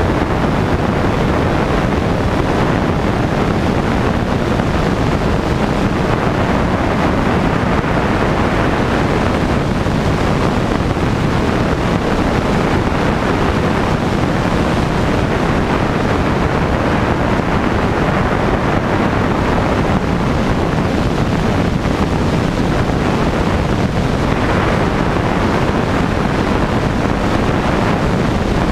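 Steady rush of wind on the microphone over the running engine and propeller of a single-engine light aircraft in level flight.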